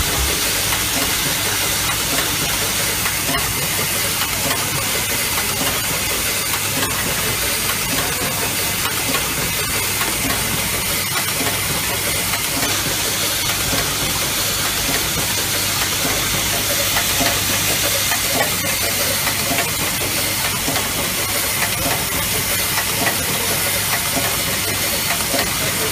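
Automatic EE core assembly and taping machine running: a steady hissing noise over a constant low hum, with faint ticks of its mechanisms.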